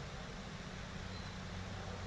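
A pause in the song: only a steady low hum and hiss, with a faint, very short high note about a second in.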